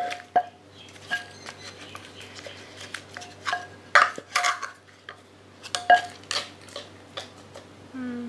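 Irregular knocks and clinks of kitchen utensils against a mortar as papaya salad is pounded and mixed, some strikes ringing briefly. A short falling call is heard near the end.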